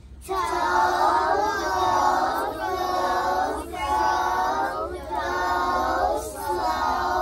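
A class of young children reading long-O words aloud together in unison, such as toe, crow and slow. Each word is drawn out over about a second.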